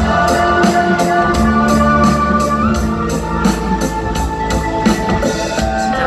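Rock band playing live in an arena: a steady drum beat of about three hits a second under sustained instrumental notes, with no singing.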